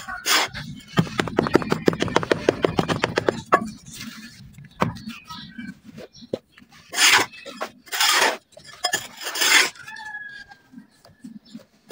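Wet red dirt paste being worked by hand into shapes: a run of rapid crackling squelches, then several short separate scraping swishes.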